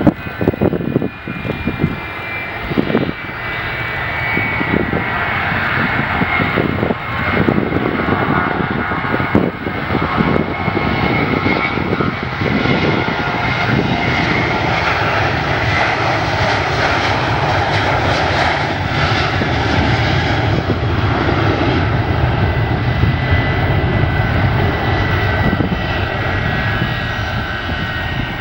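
Jet airliner's engines as the plane passes, building to a steady loud rumble with a high whine that slowly falls in pitch. A few short thumps come in the first several seconds.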